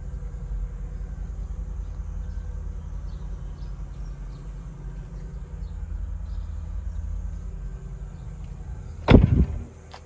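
Steady low rumble, then a single heavy thump about nine seconds in that rings briefly: the combine's cab door being shut.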